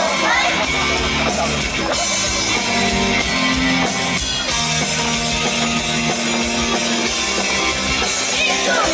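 Idol pop song played live over a PA, with a rock-style backing track. Singing is heard at the start and again near the end, with an instrumental passage between.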